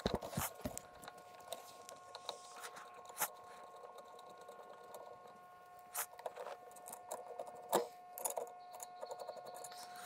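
Scattered light clicks, taps and scratchy handling noises of a door handle and its screws being fitted by hand onto a skid steer's glass door panel, with a few sharper ticks, over a faint steady hum.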